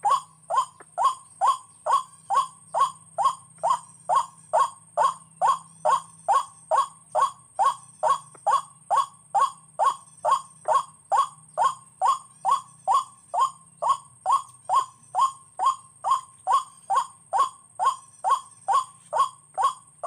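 White-breasted waterhen's monotonous call: short 'kwak' notes, each falling in pitch, repeated evenly about two and a half times a second.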